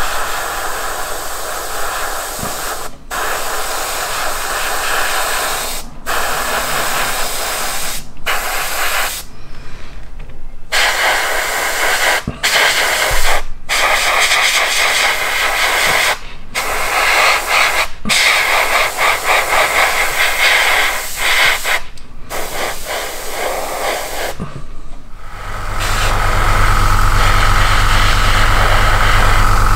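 Airbrush spraying a gloss clear coat (Alclad Aqua Gloss): a steady hiss of air and paint, broken by about ten short pauses. Near the end a steady low hum comes in and keeps going.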